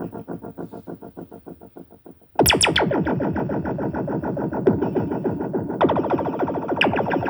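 Synth-driven electronic music. A fast pulsing synthesizer pattern fades out, then about two seconds in the full track comes back in suddenly and loudly with distorted synths.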